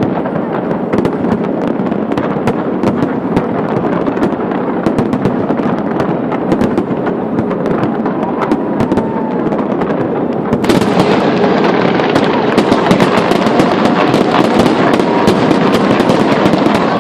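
Big fireworks display: a dense, continuous barrage of crackling and popping bursts. It turns louder and sharper abruptly about ten seconds in.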